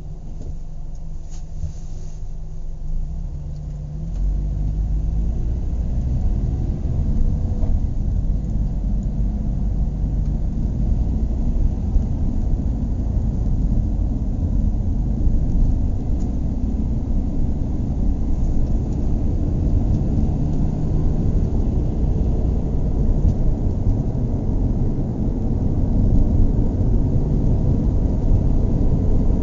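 Car engine running with a steady low rumble, getting louder about four seconds in.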